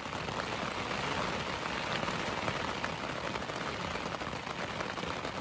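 Steady rain falling on a tent, heard from inside: a dense, even spatter of drops on the fabric.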